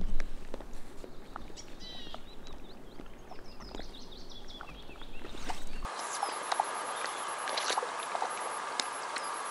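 Lakeside outdoor sound: small birds chirping in short curved calls over a low wind rumble, with a knock right at the start. About six seconds in it switches abruptly to a brighter, steady hiss with a few light ticks of water.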